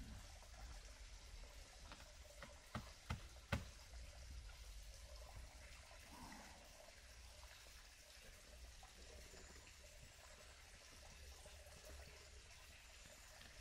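Near silence, with three short knocks in quick succession about three seconds in.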